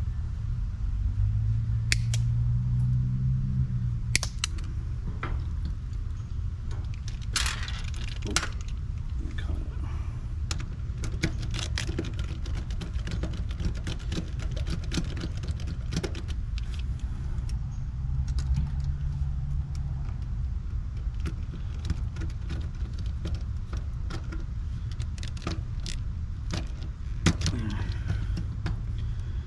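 Wiring being handled inside an AC condensing unit's control panel: scattered small metallic clicks and rattles as wire ends and spade connectors are worked onto the new contactor's terminals, with occasional brief rustles. A steady low rumble runs underneath.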